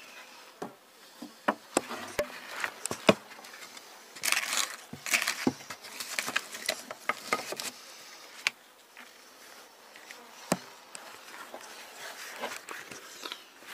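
Wooden beehive parts being handled: irregular knocks, clicks and scrapes as boards and a divider are shifted about in the wooden hive body, with a few stretches of rustling.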